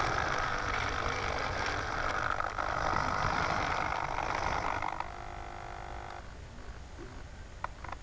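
Motorized antenna tracker turning on its pan turntable: a buzzing mechanical whir for about five seconds, which gives way to a steady whine for about a second before it quiets, as the tracker swings through its pan servo end points.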